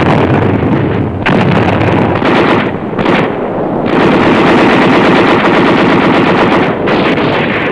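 Machine-gun fire in long, rapid bursts, loud and dense, easing briefly about three seconds in before resuming.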